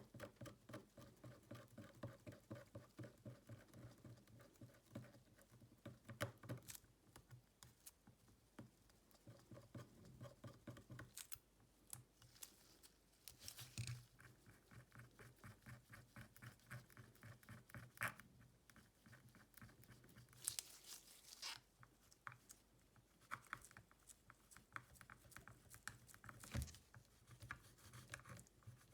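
Faint close-up sounds of hand tools and parts working on a smartphone: a fast run of light ticking and scraping, with a few sharper clicks.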